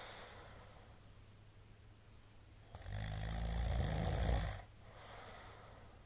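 A man snoring in his sleep: soft breathing, then about three seconds in one loud, low snore lasting nearly two seconds, followed by quieter breathing.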